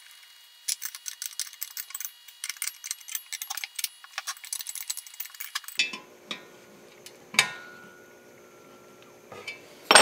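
Ratcheting 14 mm wrench clicking in quick runs of ticks as it tightens the bolts holding the drill press column to its base. Later come a couple of single sharp metal knocks, the last one the loudest, near the end.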